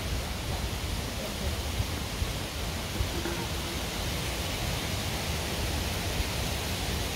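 Steady rushing outdoor noise with an uneven low rumble underneath, with no distinct sound events standing out.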